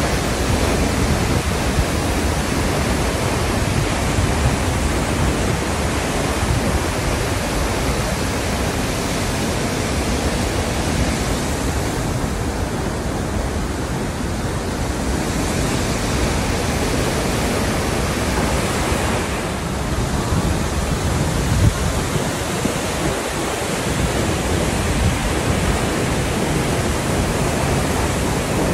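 Multnomah Falls in heavy flood flow after a big rainstorm: a loud, steady rush of falling water crashing into its plunge pool.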